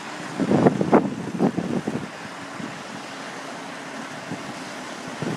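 Semi-truck engine idling with a steady low hum while the end dump trailer's box is tipped up. A brief cluster of irregular knocks and rattles comes about half a second in and lasts about a second and a half; it is the loudest thing heard.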